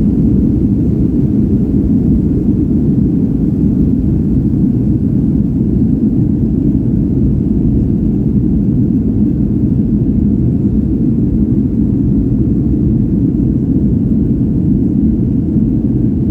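Boeing 757-200's Rolls-Royce RB211 engines at takeoff power, heard from inside the cabin as a loud, steady low rumble with air noise.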